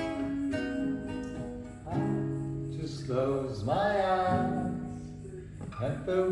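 Acoustic guitar strummed in slow chords, with a gliding melody line coming in about halfway through.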